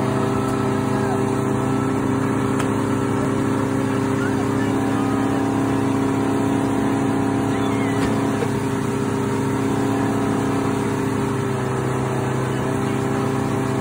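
Motorboat engine running steadily at cruising speed, with the wake rushing behind the boat.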